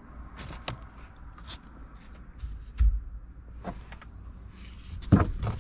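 Scattered light clicks and knocks of hands handling loose plastic dash trim and tools inside a car's interior, with a dull thump about three seconds in.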